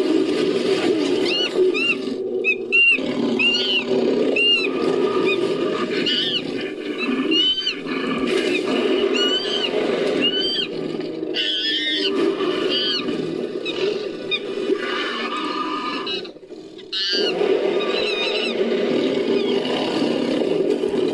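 Sound-designed monster-monkey vocalizations layered from baboon and chimpanzee calls: rapid, repeated shrill arching screeches over a dense, continuous lower growl-like layer, with a short break about sixteen seconds in.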